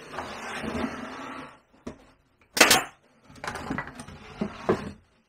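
Cordless brad nailer tacking pine cleats: a steady whir for about a second and a half, then a sharp, loud crack about a second later. It is followed by lighter knocks of wooden boards being handled on the workbench.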